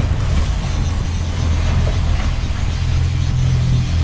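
Twin outboard engines of a Sea Hunt Gamefish 27 running as a steady low drone at trolling speed, over a steady hiss of wind and water.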